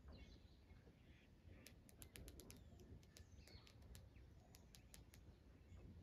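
Faint birds chirping now and then over a low steady rumble, with a quick irregular run of faint high ticks from about two to five seconds in.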